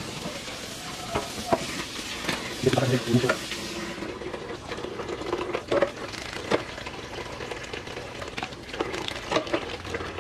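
Kitchen tap running into a stainless steel sink while hands rinse things under the stream, with scattered light clinks and knocks of handling.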